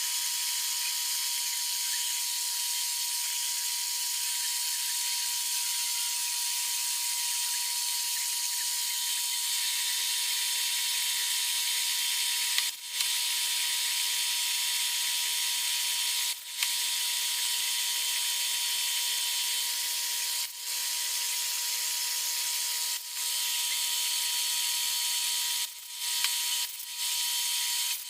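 A workshop power tool running steadily, a continuous hiss with a steady whine. The sound dips briefly about six times in the second half, each dip with a click.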